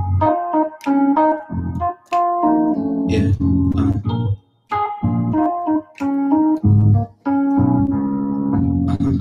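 Electric keyboard playing chords over low bass notes in short phrases, with brief gaps between them.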